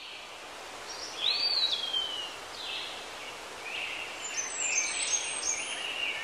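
Steady hiss of background ambience with a few high whistled chirps: a long one that rises and then falls about a second in, and several shorter stepped ones near the end.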